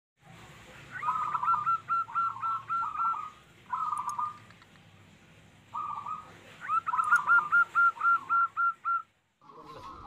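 Zebra dove (perkutut) cooing: two long phrases of quick, repeated notes, with a couple of short snatches between them.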